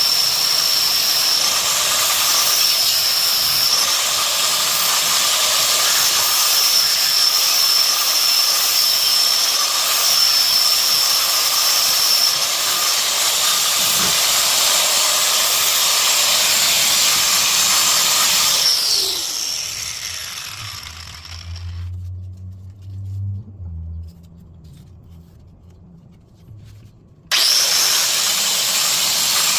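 Plasma cutter cutting through a car's steel frame: a loud steady hiss with a high whine. It trails off with a falling pitch about two-thirds of the way through, and after a few quieter seconds starts again abruptly near the end.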